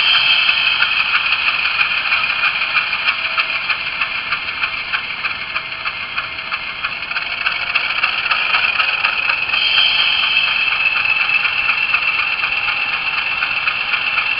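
ESU LokSound decoder's recorded GE U28C diesel engine sound, played through the HO scale model's small speaker: a steady, pulsing engine sound with no deep bass. It grows louder and brighter about two-thirds of the way through.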